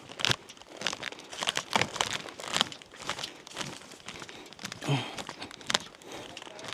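Irregular crunching and crinkling rustle of dry leaves and brush being trodden and pushed through, with a brief low grunt about five seconds in.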